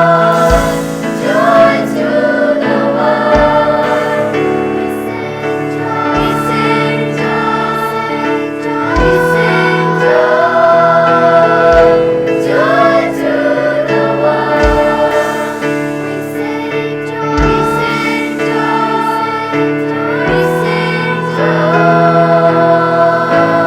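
High-school choir singing sustained notes in harmony, with a short low thump about every three seconds under the voices.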